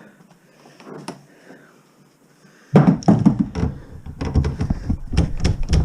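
Loud knocking and clattering from objects being banged and handled, starting suddenly a little under halfway through and going on as a dense run of knocks.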